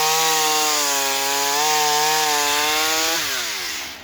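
Small Ryobi two-stroke gas chainsaw running at full throttle through wood, its engine note steady and loud. About three seconds in the throttle is released and the revs fall away quickly toward idle.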